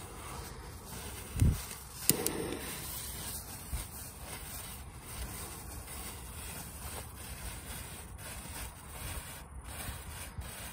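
Small ground strobe fireworks (blinkers) flashing on asphalt, with faint fizzing and crackling. A dull thump comes about a second and a half in, then a sharp crack and a short hiss at about two seconds.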